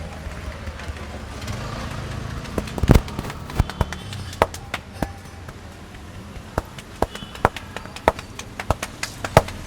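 Hands slapping and tapping on a head during an Indian head massage: sharp, irregular slaps, about one or two a second, the loudest about three seconds in.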